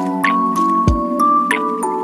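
Background music: a melody of held notes over a low beat.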